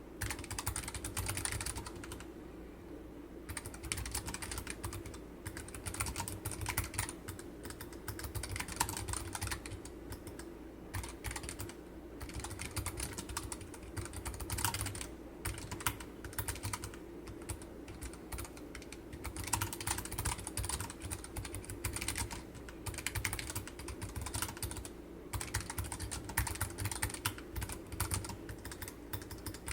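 Typing on a Keychron K7 Optical low-profile keyboard with Keychron optical Mint switches, its PCB backed with masking tape: a steady run of fast key clicks with a few short pauses.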